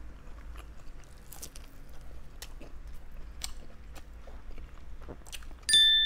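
Close-up chewing and biting of Thai chorizo sausage, with small wet mouth clicks. Near the end a sudden bell-like ding rings out and fades slowly.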